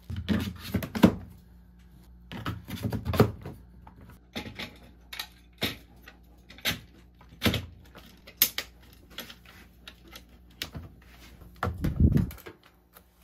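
Hard plastic parts of a standing garment steamer clicking, knocking and rattling as they are handled and snapped together during assembly, including the hose being fitted onto the base. A heavy breath near the end.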